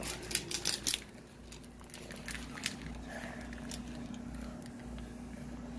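About a second of crackling and splashing as the shrimp and their water are tipped from a plastic shipping bag into a plastic bucket, then quiet with a faint steady hum.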